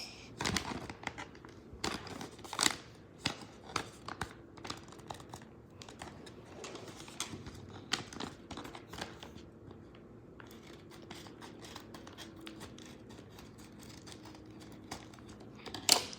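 Plastic blind-bag packaging being handled and torn open by hand, with irregular crinkling, rustling and small crackles, busiest in the first half.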